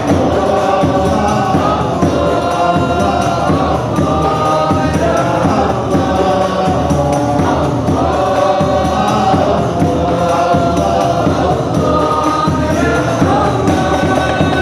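A group of men singing an Arabic devotional qasidah together into microphones, with hand-beaten frame drums keeping a steady rhythm underneath.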